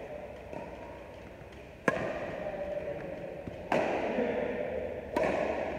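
Badminton rally: three sharp racket strikes on the shuttlecock, about a second and a half to two seconds apart, each ringing on in the echo of the hall. The first strike is the loudest.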